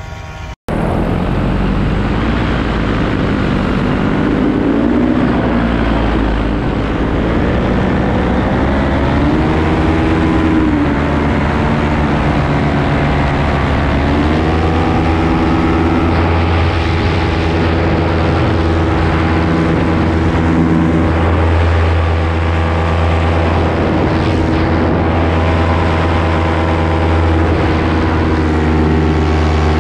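Paramotor engine and propeller running steadily in flight, heard close up. The engine note rises as the throttle opens, about ten seconds in and again about fourteen seconds in. The sound cuts out for a moment just after the start.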